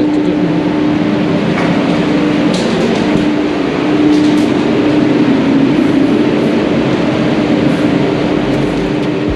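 Paint spray booth's air handling fans running: a loud, steady rushing hum with a constant low tone under it.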